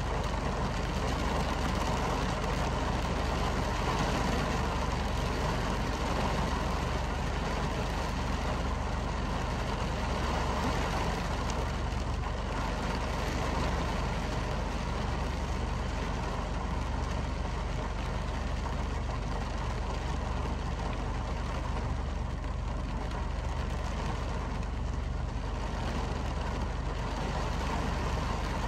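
Heavy rain falling steadily against a window, a continuous even hiss with a low rumble underneath and no thunderclaps.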